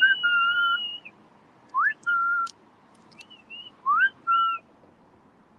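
Human whistling: a held whistled note, then twice a note that slides up and is held briefly, with a few short chirps in between.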